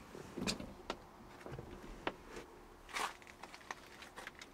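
Light rustling of clothing and a handful of small knocks and clicks as a person shifts out of a car's driver seat and leans back in through the door.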